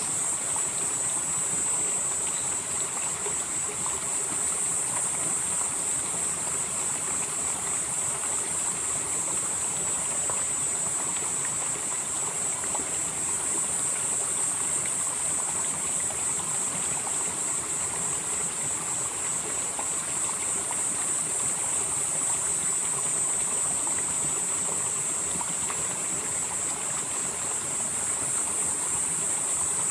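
Mountain stream flowing steadily over rocks, a continuous even rush of water. Over it runs a high, steady buzzing drone that swells and eases every several seconds.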